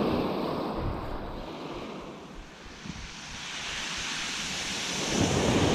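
Small waves breaking and washing over a shingle beach, with wind buffeting the microphone. The surf dips about two seconds in and builds again toward the end, with a brighter hiss of water running over the stones.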